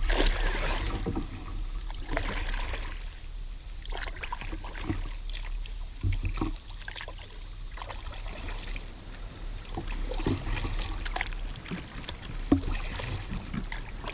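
Kayak paddle strokes in shallow, weedy water: irregular splashes, drips and scrapes as the blades and the hull push through lily pads and muck.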